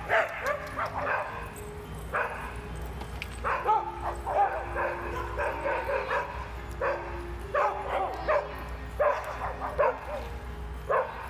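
Several dogs barking and yipping in short clusters every second or two, with a steady low hum underneath.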